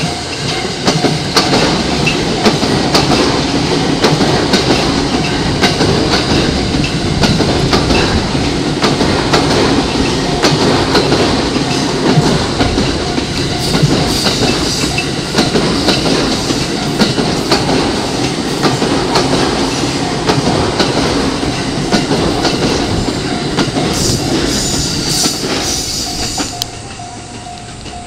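JR E217-series electric commuter train passing close by, its wheels clattering over rail joints in a continuous run of clicks. Near the end the wheels give a brief high squeal, then the noise falls off as the last car goes by.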